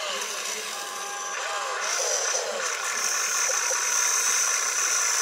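Small electric motors and gearboxes of a radio-controlled excavator whining as it swings its upper body and lowers its arm to dig, the whine sliding up and down in pitch and growing louder.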